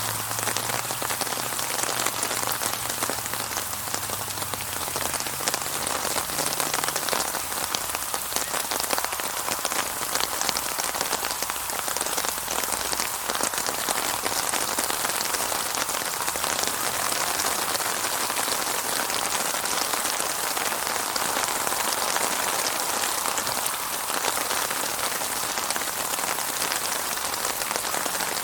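Steady heavy rainfall: a dense, even patter of drops.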